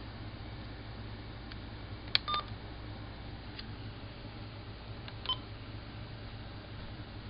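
Short electronic beeps, like button-press or keypad tones: a sharp click about two seconds in followed by a brief two-tone beep, and another brief beep about five seconds in, over a steady low hum.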